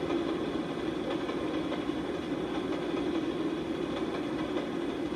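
Model railroad freight cars rolling past along the track: a steady rumble of wheels on rail.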